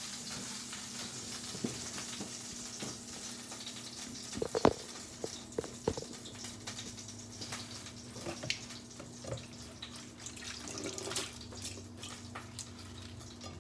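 Kitchen handling noises: scattered light knocks and clinks of cookware and utensils, the loudest about four and a half seconds in. Underneath is a soft hiss that fades and a steady low hum.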